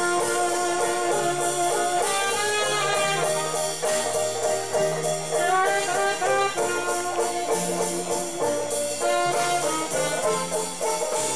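Jazz from a small band: horns play the melody over a bass line that steps from note to note.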